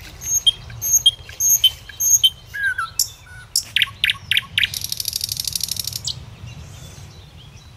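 Birds calling: a run of short, high chirps about twice a second, then a mix of different calls, ending in a rapid trill that lasts about a second.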